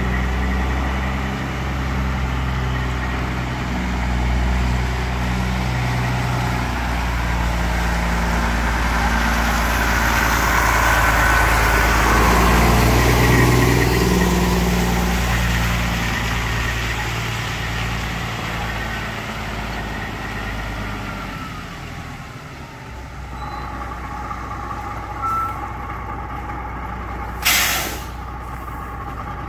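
1991 White/GMC tandem-axle semi tractor's diesel engine running as the truck drives slowly past, louder as it comes close in the middle and easing off after. Near the end, a short sharp hiss of air from the air brakes.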